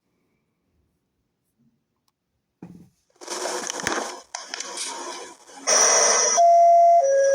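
Subway train noise builds up about three seconds in. Near the end a two-tone descending door-closing chime sounds, a high note stepping down to a lower one, the signal that the doors are closing.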